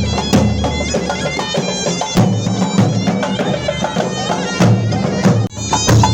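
Tunisian traditional music: a loud reed wind instrument playing a melody over steady drum beats, with a brief break about five and a half seconds in.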